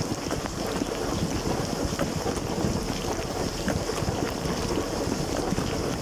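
LG dishwasher mid-wash, heard from inside the tub: water spraying and splashing over the dishes, with a steady low rumble from the machine.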